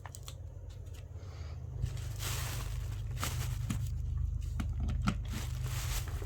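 Rustling and small clicks of a desk fan's packaging being handled, busiest from about two seconds in, over a steady low hum.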